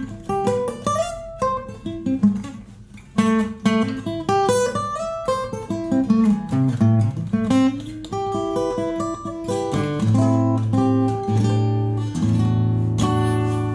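Fender FA-25 steel-string acoustic guitar being played: a melody of separate picked notes and short runs, then, from about eight seconds in, held chords left ringing.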